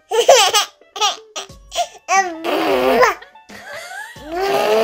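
An 11-month-old baby babbling and laughing in excited, high-pitched squeals, several short outbursts that rise and fall in pitch.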